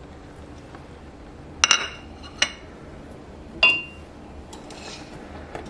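Kitchenware clinking: a ceramic plate set down on a stone counter and a utensil knocking against a stainless steel cooking pot. Three sharp clinks about a second apart, the last ringing briefly.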